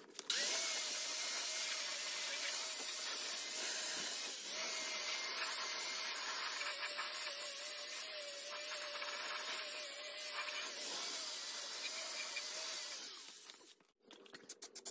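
Steady hissing rush with a faint, even whine running through it, like a machine or air tool running, stopping abruptly near the end.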